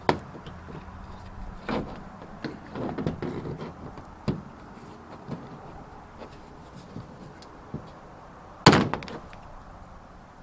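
Plastic push-pin trim fasteners being pried out of a van door's trim panel with a plastic trim removal tool: a few sharp snaps as clips pop free, with some scraping of the tool in between, the loudest snap near the end.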